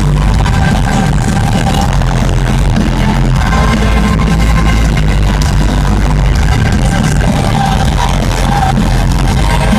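Loud live band music with a heavy, steady bass, played over an arena sound system and recorded from the stands.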